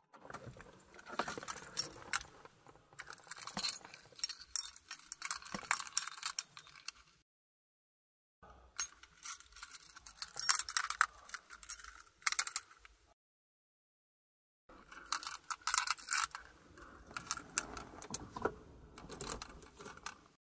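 A bunch of car keys jangling and clinking, shaken in three separate bursts of several seconds each, with dead silence between.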